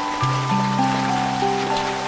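Slow, calm instrumental music of long held notes, a deep bass note entering about a quarter of a second in, over a steady patter of rain.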